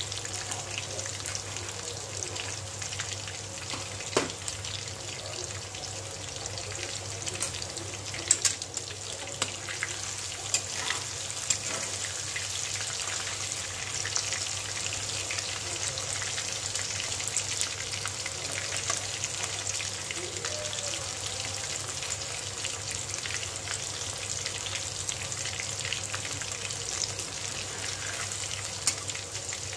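Chicken pakoras deep-frying in hot oil in a steel kadai, a steady crackling sizzle. A few sharp clicks stand out, and a metal spatula stirs and turns the pieces in the pan in the later part. A steady low hum runs underneath.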